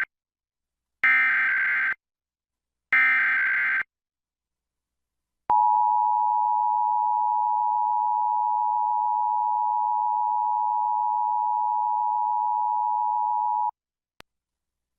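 Emergency Alert System SAME header: two bursts of digital data warble, about a second each, then after a short pause the EAS two-tone attention signal (853 and 960 Hz together) sounding steadily for about eight seconds and cutting off sharply.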